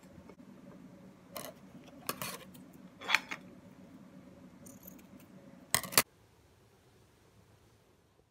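Scissors snipping a ribbon: a few short, sharp cuts, the loudest two close together about six seconds in, then only a faint hum.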